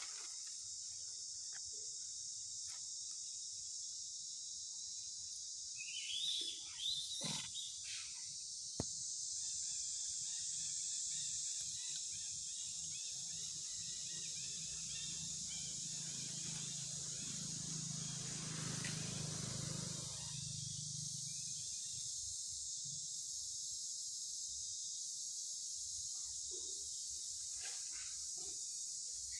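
Steady high-pitched drone of insects in the forest. A short high call sounds about six seconds in, and a low hum swells and fades over several seconds past the halfway point.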